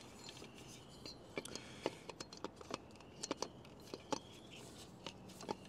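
Scattered light clicks and taps of hard plastic parts, a Starlink Gen 3 mounting adapter plate and mast, being handled and worked into position.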